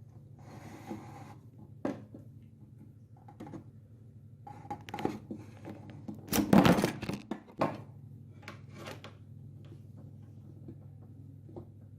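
Scattered knocks and clatters of objects being handled, with a short hissing rustle near the start and the loudest burst of knocks about six to seven seconds in, over a steady low hum.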